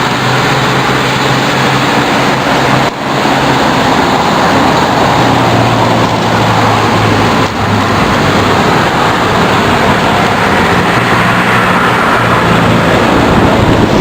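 Road traffic running by, with a steady engine hum, under a constant rush of wind on the microphone of a moving bicycle.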